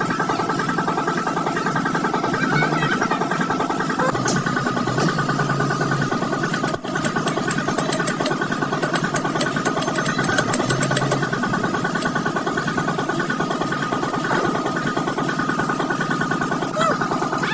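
An engine running steadily at idle, with a brief break a little under seven seconds in.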